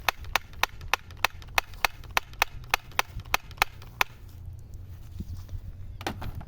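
Rapid, evenly spaced sharp clicks or taps, about three a second, that stop about four seconds in.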